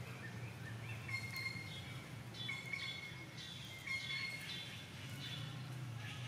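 A string of short, high-pitched animal calls, repeated several times, over a steady low hum.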